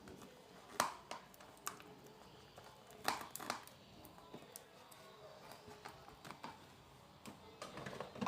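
Homemade slime being mixed by hand: a few sharp clicks and short squelches, the loudest about a second in and again around three seconds in.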